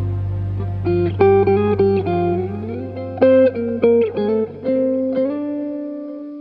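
Background music: guitar notes plucked one at a time over a low held note that fades away, ending on a long held note.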